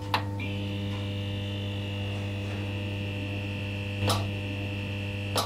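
Neon-sign buzz sound effect: a steady low electrical hum with higher steady tones layered over it, broken by short crackles at the start, about four seconds in and just before the end, like a neon tube flickering.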